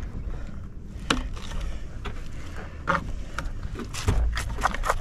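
Bait fish being cut up on a bait board: scattered sharp knocks and clicks, coming thick and fast in the last second, over a steady low rumble.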